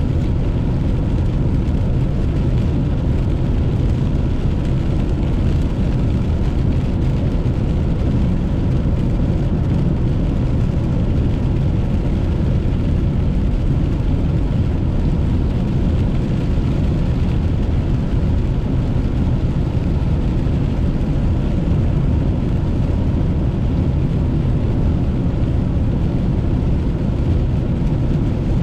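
Steady road noise inside a car cabin while driving on a wet highway: tyres on wet pavement and the engine running at cruising speed.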